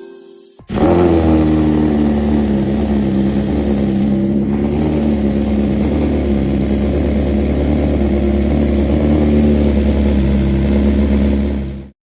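A 2023 BMW S1000RR's inline-four engine starts from cold through an SC Project CR-T exhaust. It catches suddenly under a second in, sags briefly in pitch, then settles into a loud, steady idle.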